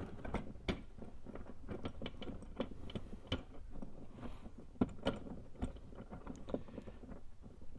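Irregular metallic clicks and light knocks as a bolt with its washers is pushed and worked into a cavity in the car's body panel.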